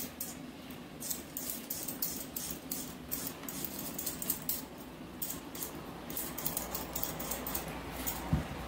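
Metal vegetable peeler scraping the skin off a raw potato: quick, short scratchy strokes repeating a few times a second. A single low thump near the end.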